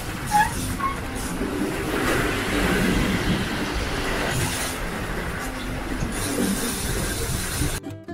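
Steady wind and sea noise on board a sailing catamaran under way, with a few brief squeaks about half a second in. Acoustic guitar music comes in just before the end.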